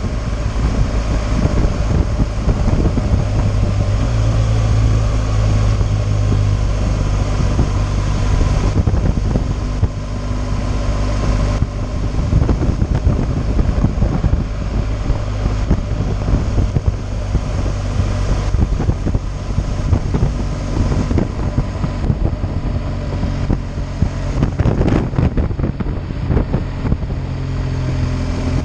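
BMW R 1200 GS boxer-twin engine running steadily at road speed, heavy wind rushing and buffeting over the microphone.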